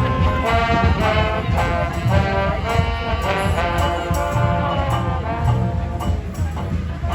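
Street brass band playing a tune: several horns sounding held and moving notes together over a low drum beat.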